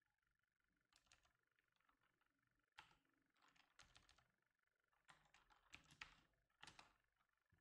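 Faint typing on a computer keyboard: keystrokes in several short, irregular bursts.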